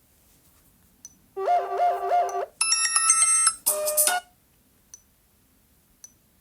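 Sony Xperia's built-in ringtones previewed through the phone's speaker: three short, different melodic snippets one after another, each cut off after about a second as the next tone is selected, with a few faint taps around them.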